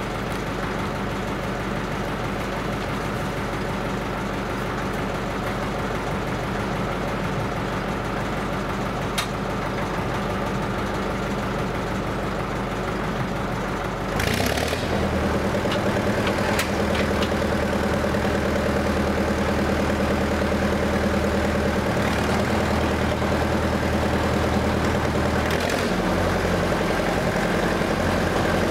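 1955 Bucyrus-Erie 15-B cable shovel's engine idling steadily. About halfway through there is a brief hiss and the engine is throttled up, running faster and louder, and its note shifts again near the end.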